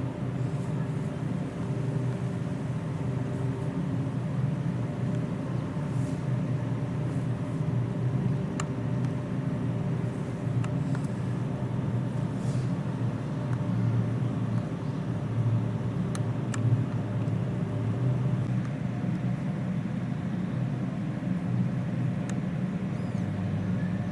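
Steady low drone of running machinery, with a few faint steady tones above it and an occasional faint click.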